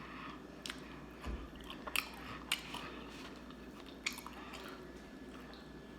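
Close-up chewing of fried food (Harold's chicken and fries), mouth noises with a few sharp crunchy clicks spread through the chewing.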